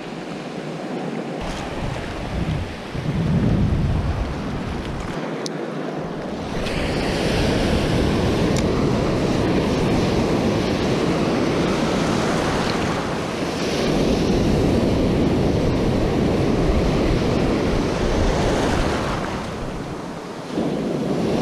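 Small surf waves breaking and washing around the shallows, with wind buffeting the microphone; the wash grows louder about six seconds in.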